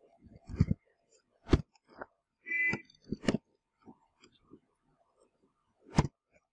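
Computer keyboard keystrokes: irregular clicks and knocks while typing, three of them louder than the rest. A short steady tone sounds about two and a half seconds in.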